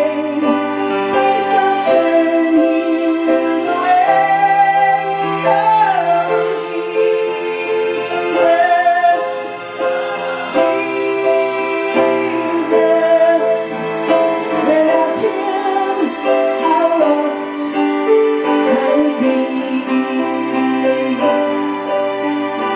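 Worship music at a revival service: a woman singing a slow melody over sustained keyboard chords.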